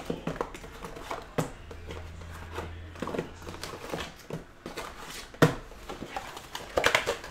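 Cardboard hobby box being unpacked by hand: foil-wrapped mini-boxes pulled from the cardboard tray and set down, with scattered taps, scrapes and rustles and one sharper knock about five seconds in.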